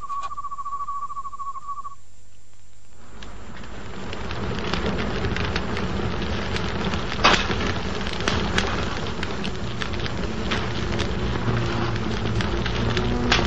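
A high, steady trill fades out about two seconds in. After a short hush, a large fire catches and grows into a steady crackling burn, with sharp pops, the loudest about seven seconds in.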